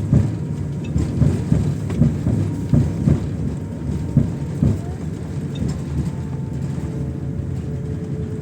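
Airliner cabin noise: a steady low rumble with frequent irregular bumps, under muffled voices.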